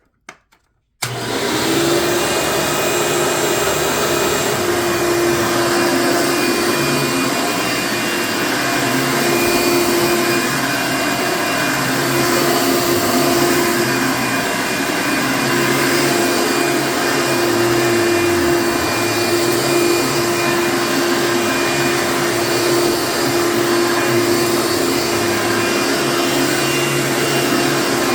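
Hoover upright vacuum cleaner switched on about a second in, then running steadily with a whine over its motor note. As can be heard, the belt is pretty loose, and the owner thinks there is some bearing noise from its age.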